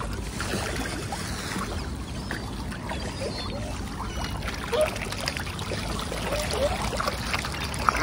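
Water splashing and lapping as a dense crowd of whooper swans and ducks paddles and jostles close at the water's edge, with short bird calls now and then.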